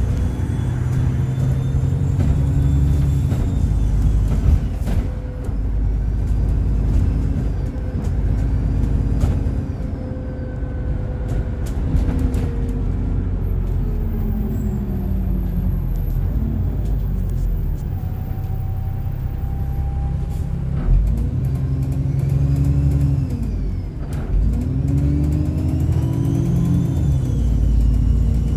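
Alexander Dennis Enviro 400 double-decker bus heard from on board, its diesel engine pulling away and easing off several times. A loud, high turbo whistle rises and falls with the engine.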